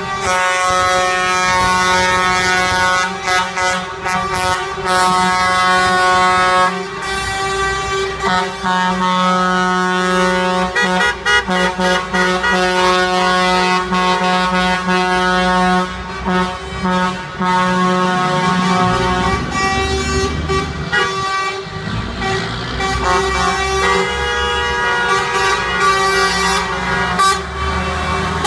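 Many truck air horns blaring together in long, overlapping blasts, with the engines of heavy trucks running underneath: protest honking from a truckers' strike convoy.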